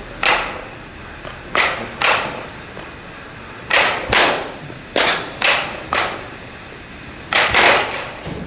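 A series of sharp, short impacts, about ten of them, some in quick pairs and threes, each fading with a short echo.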